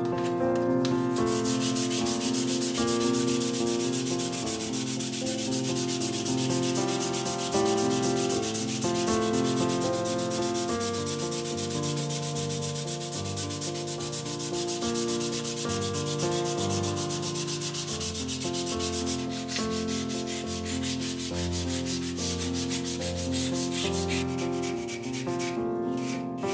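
Sandpaper rubbed back and forth by hand in quick, even strokes on the rosewood stock of an old try square. The rubbing stops about a second before the end. Soft piano music plays underneath.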